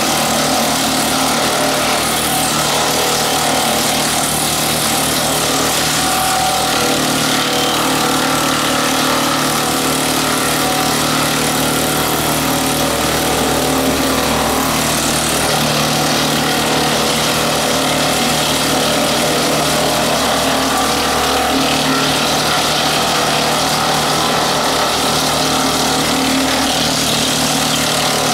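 Tractor engine running steadily while driving a PTO-driven WoodMaxx WM-8M 8-inch wood chipper, a loud continuous mechanical drone with a broad hiss over it.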